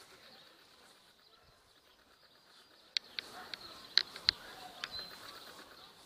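Outdoor garden ambience with faint high bird chirps. In the second half comes a run of sharp clicks and taps, the loudest about a second after they begin.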